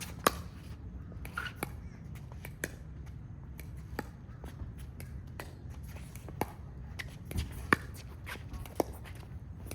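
Pickleball paddles hitting the plastic ball in a rally: sharp pops about once a second, alternating back and forth, over a steady low background hum.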